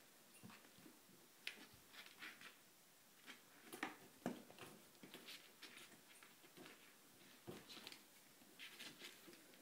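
Kittens' paws patting and scratching at a door and floor: faint, irregular taps and scrapes, with two louder knocks about four seconds in.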